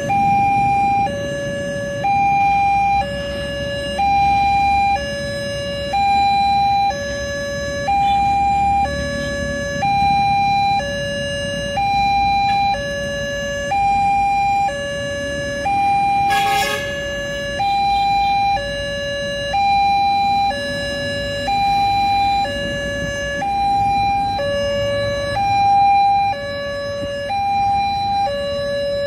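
Railway level-crossing alarm sounding from its horn loudspeaker: an electronic two-tone signal that alternates steadily between a higher and a lower tone, each held about a second. Road traffic and motorbikes run underneath, with a brief sharp sound about halfway through.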